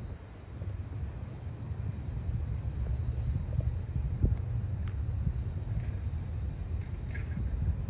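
Low, uneven rumble with crickets chirping steadily high above it, and a few faint ticks.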